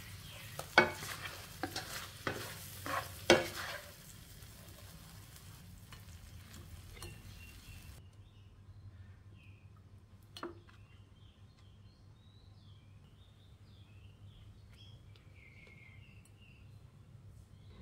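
Shrimp frying in satay chili sauce in a wok, sizzling, as a spatula scrapes and knocks against the wok several times in the first four seconds. After that it goes quieter, with a single click and faint short high chirps.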